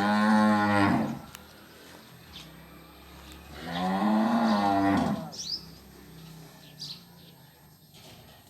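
Cattle mooing: two long, loud moos a few seconds apart, each rising and then falling in pitch.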